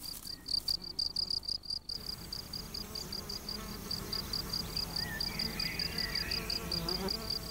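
Male European field cricket singing its calling song: an even run of short, high-pitched chirps, about five a second. A faint low insect buzz joins about two seconds in.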